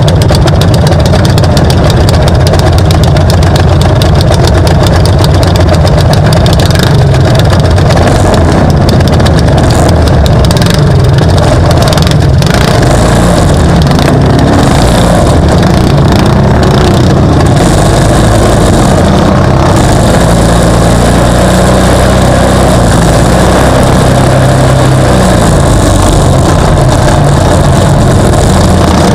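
Off-road race vehicle's engine running loudly and steadily, heavy at low pitch.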